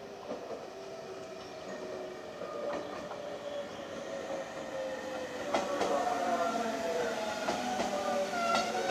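JR Shikoku 7000 and 7200 series electric train pulling into the station and slowing, its motor whine made up of several tones that slide slowly down in pitch as it brakes. It grows louder as it comes in, with a sharp clank about five and a half seconds in and another near the end.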